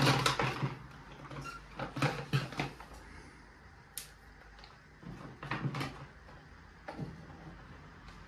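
Long green peppers being pushed and packed by hand into a plastic pickling jar: a series of short rustles, squeaks and knocks of peppers and hands against the jar, with a sharp click about four seconds in.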